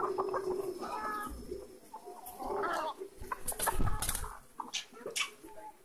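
A flock of brown laying hens sick with infectious laryngotracheitis, calling and clucking in several short calls, with a few short, sharp noises in the second half.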